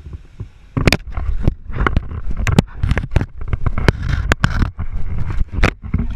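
An alligator biting and shaking an action camera, giving rapid, irregular loud knocks, clicks and scrapes over a low rumble of water and handling noise.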